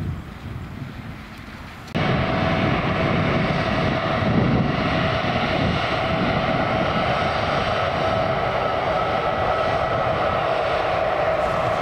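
Airliner engines at high power, a loud steady roar with a whine of several held tones, cutting in suddenly about two seconds in. Before that there is a quieter low rumble with wind noise.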